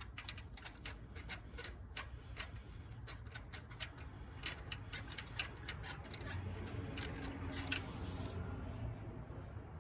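Ratchet wrench clicking in irregular runs of quick ticks while spark plugs are worked loose, over a low steady hum.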